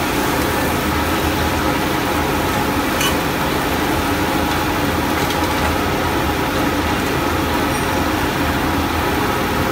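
Gas wok burner running at high flame with a steady, even rush and low rumble under a wok of simmering sauce, with one faint click about three seconds in.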